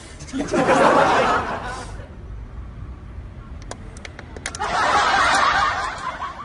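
Laughter, twice: a spell of about a second and a half near the start, then another of similar length about four seconds later.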